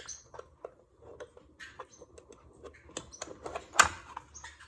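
Light, irregular plastic clicks and taps from a plastic dog lick bowl being handled as its small levers are pushed to unlatch and open it, with one sharper snap about four seconds in.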